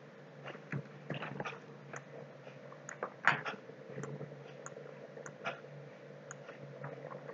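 Scattered small clicks and ticks close to the microphone over a steady low electrical hum, the loudest about three seconds in.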